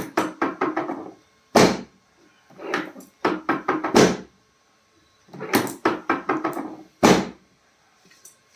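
Four loud, sharp thuds a couple of seconds apart, with quick runs of lighter knocks between them, from chiropractic adjustments given on a treatment table.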